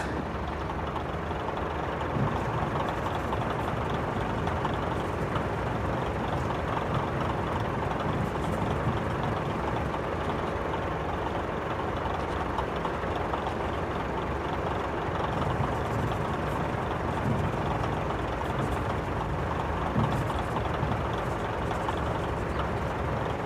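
Steady rumble of a moving vehicle, engine and road noise running evenly, with a couple of small knocks.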